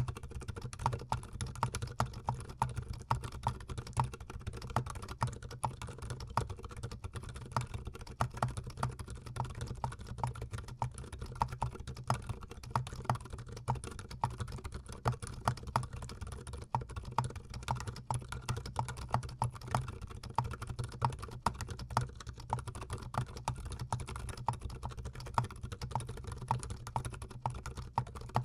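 Continuous fast typing on a GMMK Pro gasket-mount mechanical keyboard: a dense, steady stream of keystroke clacks.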